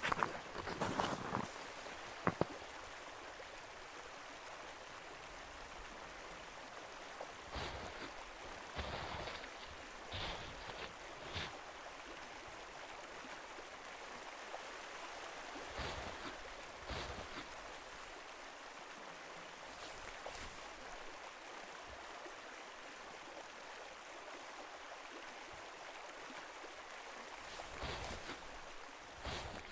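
Steady rushing of a flowing stream, with a few scattered soft crunches and footsteps in snow near the end.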